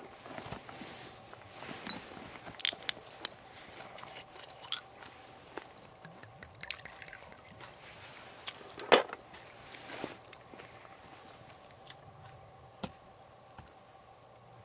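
Handling of a glass soju bottle and shot glass: scattered light clicks and taps, soju poured into the glass, and one louder knock about nine seconds in.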